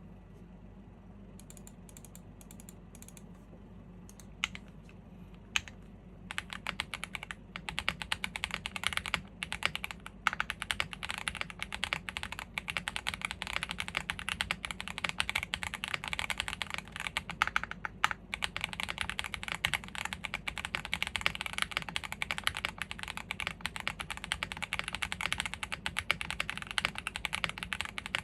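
Typing on an Owlabs Jelly Evolv gasket-mount custom mechanical keyboard with factory-lubed WPJ Diamond Avalon switches, a polycarbonate plate and GMK keycaps. A few scattered keystrokes come first, then steady fast typing from about six seconds in.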